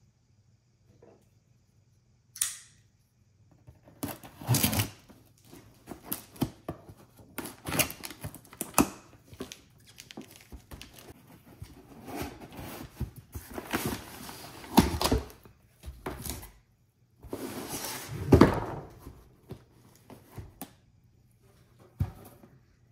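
A cardboard shipping box being opened and unpacked by hand: irregular scraping, rustling and tearing of cardboard and tape, with a few knocks as the box inside is handled. The loudest scrape comes near the end.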